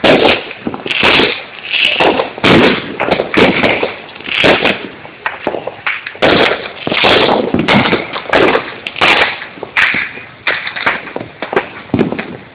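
Fireworks going off in a dense, overlapping barrage, a bang every half second to a second, each trailing off in echo.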